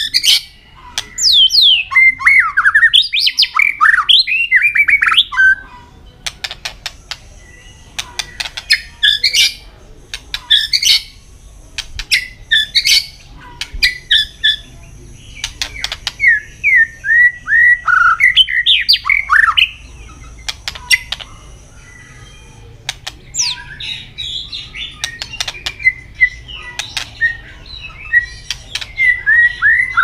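White-rumped shama singing in bursts of varied, fast whistled phrases with short pauses between them, mixed with sharp clicking calls.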